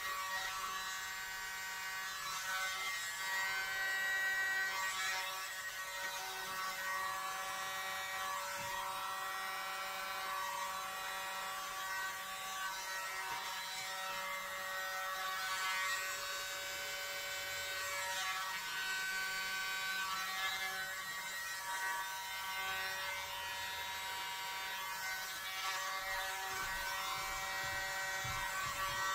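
Tiny battery-powered handheld blower (the "World's Smallest Leaf Blower") running with a buzzing motor whine whose pitch wavers up and down, as it blows across wet acrylic paint on a canvas.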